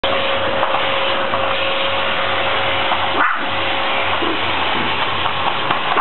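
Canister vacuum cleaner running steadily: a constant rushing noise with a steady whine. The sound breaks off briefly about three seconds in.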